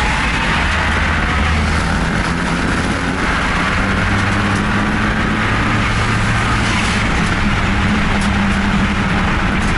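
Car engines running steadily under a loud rush of noise, with no clear rise in revs.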